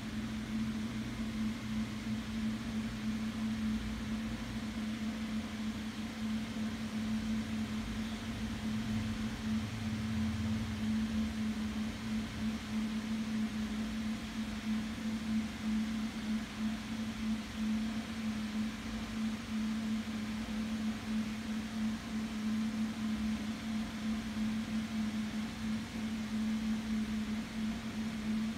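Steady machine hum: a constant low tone over an even hiss, unchanging throughout.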